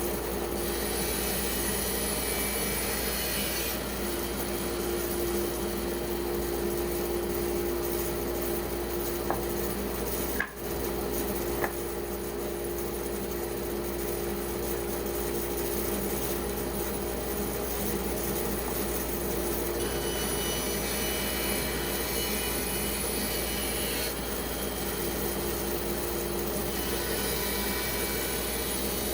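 Band saw cutting through a wet spalted pecan log: a steady motor hum under the rasping of the blade in the wood, broken once by a brief dropout about a third of the way in.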